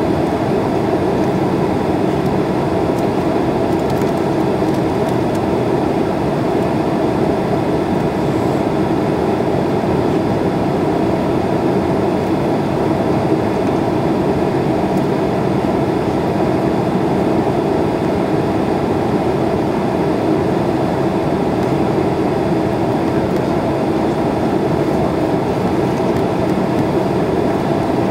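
Steady airliner cabin noise heard from a window seat: the even rush of the jet engines and airflow, unchanging throughout, as the plane descends toward landing.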